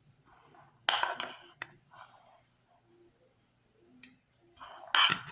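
Spoon clinking and scraping against dishes while cooked rice is scooped out: a sharp clatter about a second in, a lighter knock around four seconds, and the loudest clatter near the end.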